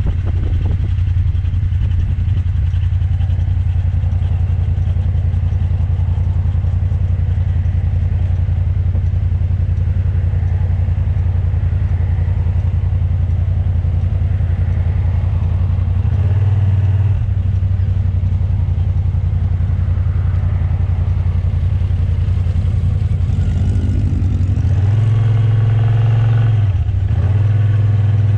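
Kymco AK550 maxi-scooter's engine running at road speed, picked up close by a camera mounted on the bike, over steady wind and road noise. The engine note shifts a couple of times, most clearly in the last few seconds.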